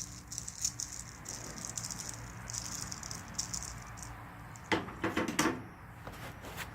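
Small metal engine parts being handled, rattling and clicking lightly, with a few louder clunks about five seconds in.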